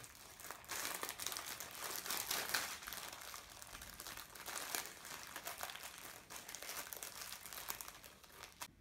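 Plastic wrapper of a packet of savoiardi (ladyfinger) biscuits crinkling as hands rummage in it and pull biscuits out. The crinkling goes on in irregular bursts and stops suddenly near the end.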